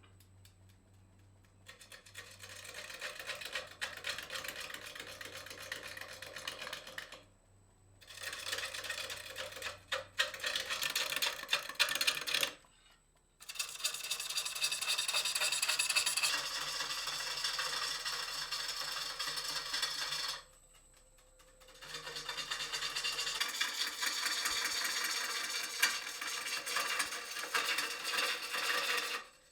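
Bowl gouge cutting the outside of a large green elm bowl blank spinning on a Laguna 18|36 wood lathe: a rough hiss of shavings with a fast ticking texture, in several stretches separated by short breaks.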